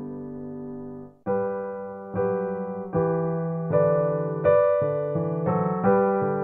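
Background keyboard music: chords struck and left to fade, changing every half second to a second, with a brief pause about a second in.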